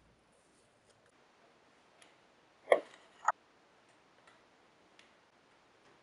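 Small wooden frame pieces and corner blocks being set down and handled on a wooden workbench: two sharp knocks about half a second apart near the middle, with a few faint light taps around them.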